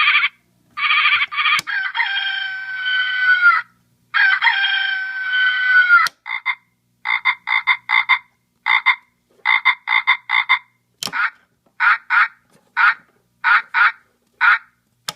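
Wolo electronic animal-sound horn playing recorded animal calls through its horn speaker: two long calls whose pitch droops at the end, then quick runs of short frog croaks that go on to the end.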